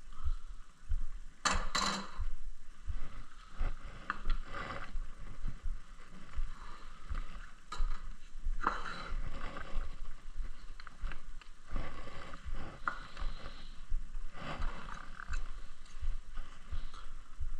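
Work on a piece of wood at the bench: irregular scraping strokes with knocks and clicks of tools and wood being handled, over a low rumble.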